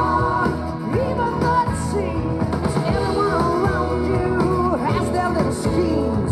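A rock and roll song with a singer playing from a vinyl record on a Garrard AT-60 turntable.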